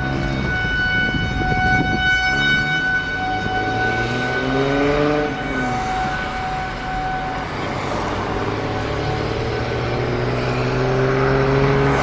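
Outdoor tornado warning siren sounding a steady tone, which fades out partway through. Under it is a car's engine and road noise, with the engine pitch rising and falling.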